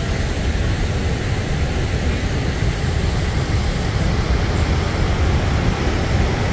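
Niagara Falls' falling water, a steady, even rushing with a deep rumble underneath.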